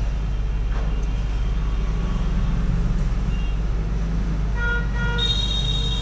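Hot air rework station blowing steadily as it heats a phone's charging connector to melt the solder, a low even hum. Near the end come a few short pitched tones, one held high.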